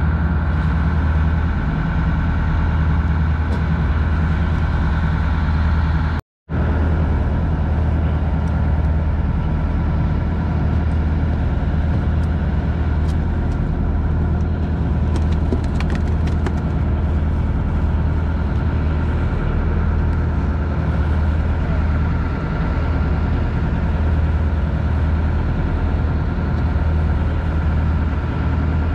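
Fishing boat's engine running steadily at a low idle, a constant low hum that cuts out for a moment about six seconds in.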